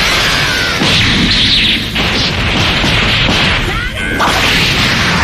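Dragon Ball Z anime fight sound effects: whooshes, crashing hits and booms over a continuous loud rushing noise that swells and breaks off several times.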